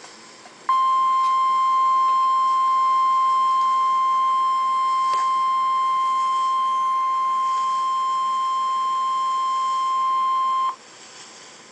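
NOAA Weather Radio warning alarm tone: one steady, loud tone held for about ten seconds, starting just under a second in and cutting off sharply, over a faint hiss. It signals that a warning broadcast follows, here a severe thunderstorm warning.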